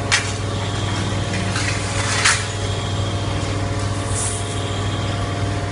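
Hydraulic copper baler running with a steady low hum from its pump unit, with a few short hissing bursts over it.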